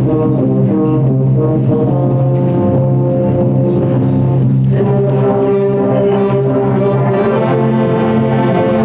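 Concert wind band playing live, with sustained brass-led chords over a held low bass note. The harmony moves to a new chord about five seconds in.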